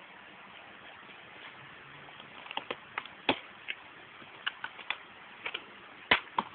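Irregular clicks and taps of a clear plastic container being handled, starting about two seconds in, with two louder knocks, over a steady hiss.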